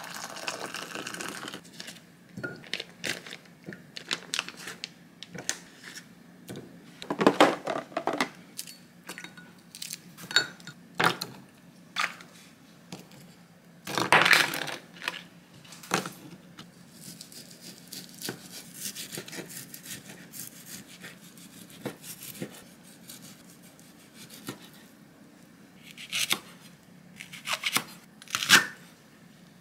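Kitchen preparation sounds: hot water poured from an electric kettle into a glass measuring cup, then clinks and splashes as food is handled in glass bowls of water, and a few sharp knife strikes through a leek onto a wooden cutting board near the end.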